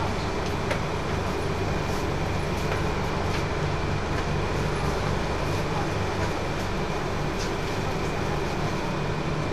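Interior of a Mitsubishi Crystal Mover light-rail car standing at a station with its doors open: a steady low hum from the car's onboard equipment and ventilation, with a thin steady high tone and a few faint clicks.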